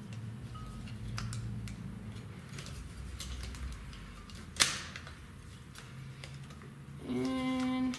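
Scattered light clicks and rattles of a kid's bike rear wheel, chain and hub being worked free from the frame by hand, with one sharper click about halfway through. A brief steady hum sounds in the last second.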